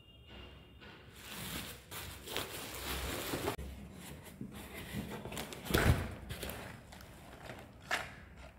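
Bubble wrap and a taped cardboard box being handled and unwrapped: irregular crinkling and rustling, with a dull thump about six seconds in.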